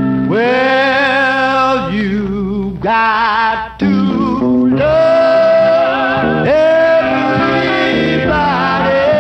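Black gospel vocal group recording from 1958–1963, singing with strong vibrato over guitar accompaniment. The voices come in about a third of a second in, after a held chord, and hold long wavering notes with brief breaks.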